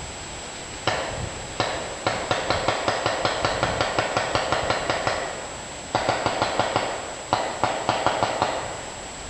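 Airsoft gun firing strings of rapid shots, about five clicking shots a second. There are two single shots, a run of about three seconds, then two shorter runs.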